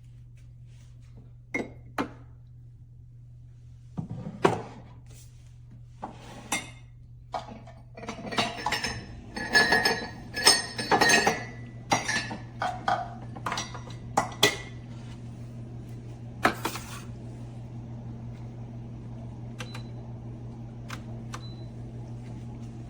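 Ceramic and metal clinks and knocks of cups and espresso-machine parts being handled, in a quick run of strikes in the middle, over a steady low hum.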